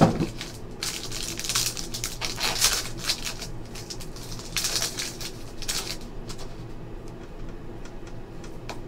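Foil wrapper of a trading-card pack crinkling and tearing as it is pulled open by hand, in dense bursts of crackly rustling through the first six seconds. After that come softer clicks and rustles as the cards are handled.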